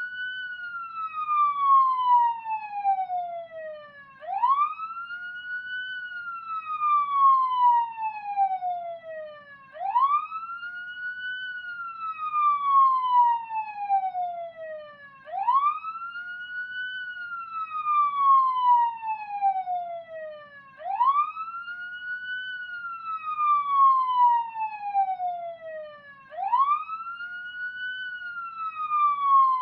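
Wailing siren, each cycle rising quickly and then falling slowly, repeating about every five and a half seconds.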